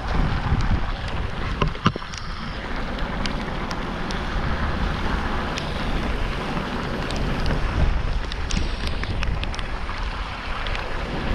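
Storm wind buffeting the microphone in a steady low rumble, with rushing rain and water noise and scattered small taps.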